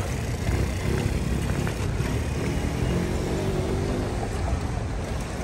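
Steady low city traffic rumble, with a vehicle's engine hum rising out of it in the middle.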